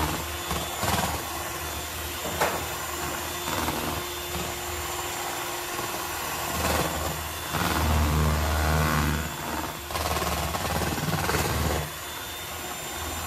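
Electric hand mixer running steadily, its beaters whipping cream in a plastic tub to churn it into butter, with several sharp knocks along the way and a louder stretch from about seven seconds in.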